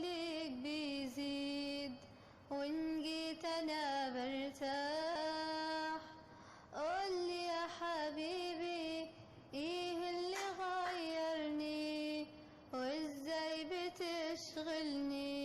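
A girl's solo voice singing an Arabic song in long, ornamented phrases with short breaks between them.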